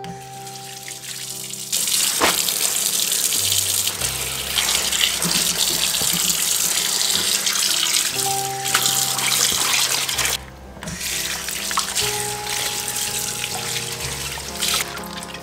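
Kitchen tap running into a sink while leafy greens are rinsed and handled under the stream. The water comes in strongly about two seconds in and eases about ten seconds in. Soft background music plays throughout.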